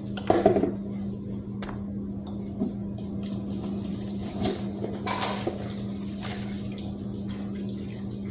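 Kitchen work sounds: dishes and utensils clattering, loudest just after the start, and a brief rush of water about five seconds in, over a steady low hum.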